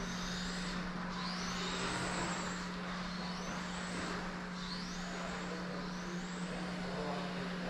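Electric 1/10-scale radio-controlled touring car's motor whining, rising in pitch again and again as it accelerates out of the corners, then easing off for the next turn. A steady low hum sits underneath.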